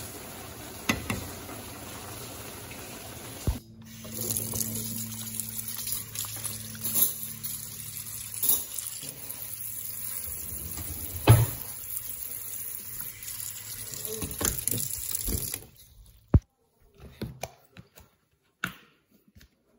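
Tap water running onto cooked spaghetti in a metal colander, rinsing it. It starts about four seconds in and cuts off suddenly near the end. Before it there is a steady hiss with a couple of clicks, and after it a few soft knocks.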